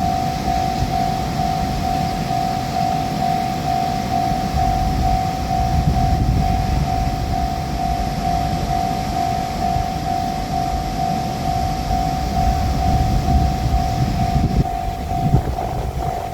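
Japanese level-crossing alarm ringing its repeating electronic 'kan-kan' tone over the low rumble of a JR Shikoku 8000 series electric limited-express train running past on the rails. The rumble eases slightly near the end.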